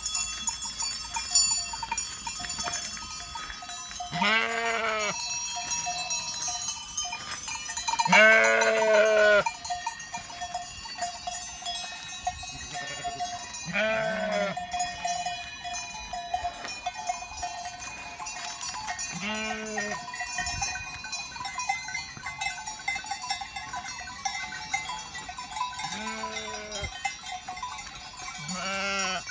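Many small livestock bells clinking and ringing steadily while animals bleat six times, each call about a second long, the longest and loudest about eight seconds in.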